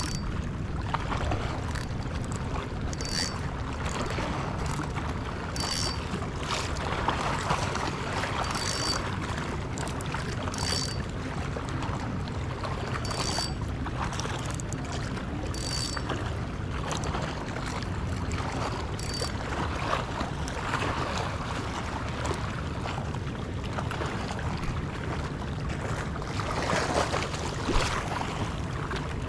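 Wind and sea noise around a small boat, an even low rumble. Short sharp clicks, each with a brief high ring, repeat about every two and a half seconds for most of the first twenty seconds, then stop.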